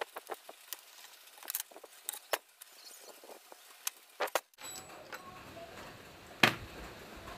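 Scattered light metallic clicks and clinks of hands handling the metal parts of a homemade coil-winding machine, around the drill chuck on its spindle. Background hiss rises about two-thirds of the way through, and one sharper single click comes near the end.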